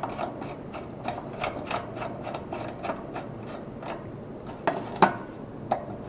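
Small irregular metal clicks and ticks, about three or four a second, as a service valve's brass and steel fittings are turned by hand on the compressor of a 1930s General Electric Monitor Top refrigerator, with a sharper click about five seconds in.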